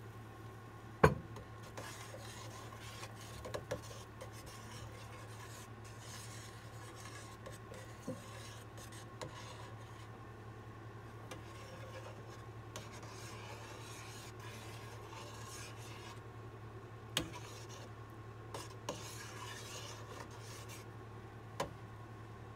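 A spoon stirring and scraping through mushroom broth in a stainless steel skillet, in scratchy bouts. A few sharp knocks of utensils on cookware cut through it; the loudest is a single knock about a second in.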